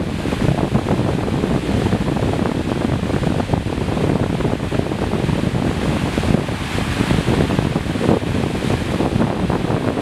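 Flash flood of muddy, hail-filled water rushing and churning in a steady, turbulent rush.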